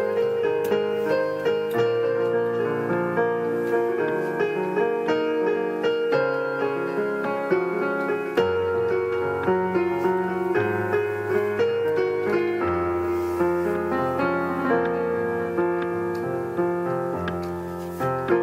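Piano playing an instrumental passage of chords and melody, with no voice, and the bass notes moving every few seconds.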